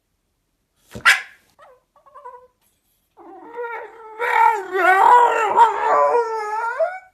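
A Staffordshire bull terrier-type dog gives a sharp snort about a second in. From about three seconds in it lets out a long, wavering howling whine that rises and falls in pitch for about four seconds.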